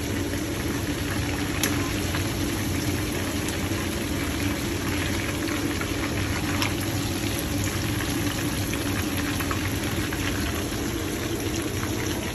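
Hot oil bubbling and crackling in a wok as duck pieces deep-fry, with scattered sharp pops over a steady low hum.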